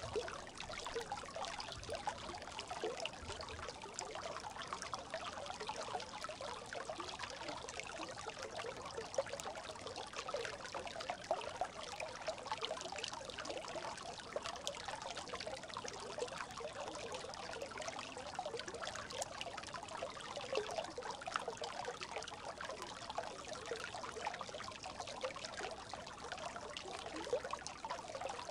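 A brook babbling: a steady, dense mass of small trickles and bubbling splashes of running water.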